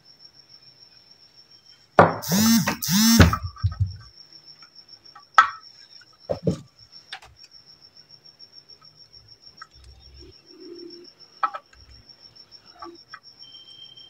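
A cricket chirping in a fast, high-pitched trill that never stops. About two seconds in comes a loud two-part call, and a few faint clicks and taps follow as wires and a plastic connector are handled.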